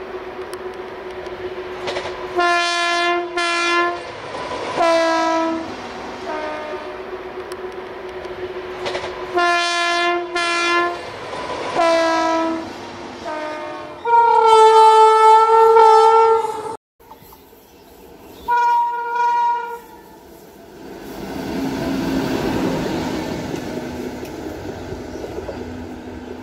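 Train horn sounding in a series of short and long blasts over a steady hum, the loudest and longest lasting about two and a half seconds in the middle. After a sudden break come two more short blasts, and then a steady rumble of a train running on track near the end.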